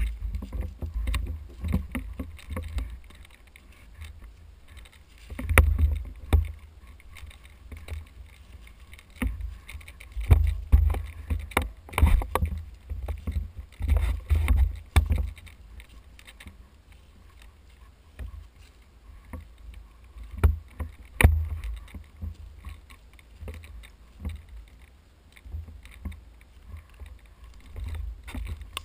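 Footsteps and rustling through dry leaves and undergrowth, with irregular sharp snaps and cracks, and uneven low rumbling bumps on the microphone as the walker moves.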